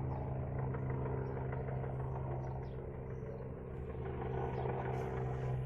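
A machine running with a steady low hum, with a few faint ticks over it.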